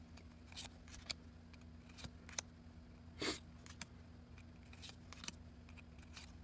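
Cardboard code cards being handled and slid off one another: faint scattered clicks and rustles, one a little louder about three seconds in, over a faint steady hum.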